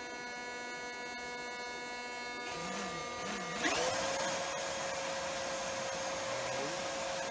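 3D-printed two-stage centrifugal compressor, driven by overvolted brushless electric motors, spinning up under a steady electrical hum. About two and a half seconds in a rush of air comes up. About a second later the motor whine rises sharply in pitch and settles into a steady high whine with air rushing through.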